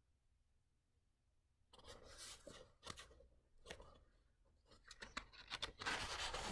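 Paperback book being handled and turned over: rustling and scraping of the paper cover under the fingers, with small clicks. It starts about two seconds in and gets louder near the end.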